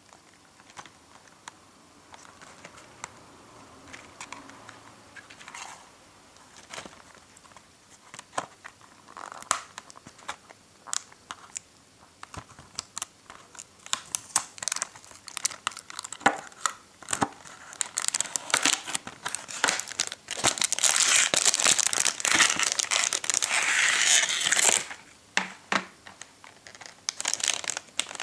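Cardboard candy box being handled and opened by hand, then a thin clear plastic tray and wrapper crinkling as they are pulled out. Scattered light taps and clicks at first, growing into dense crinkling that is loudest for several seconds past the middle.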